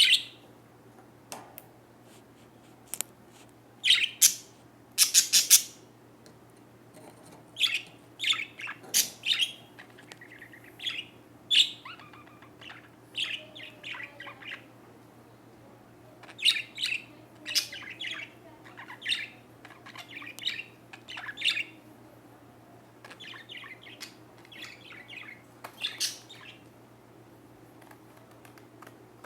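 A small bird chirping, in clusters of quick high chirps and short calls separated by brief pauses.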